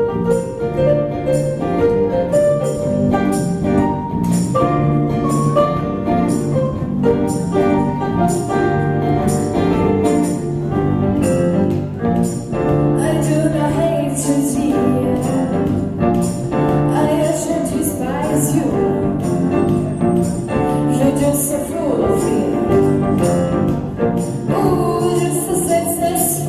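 Acoustic band playing a song live, with a steady beat, and a voice singing over it in the second half.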